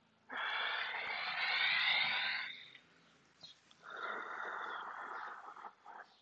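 A person breathing deeply and audibly while moving through yoga poses: two long breaths, the first louder and higher with a slight whistle, the second softer and lower.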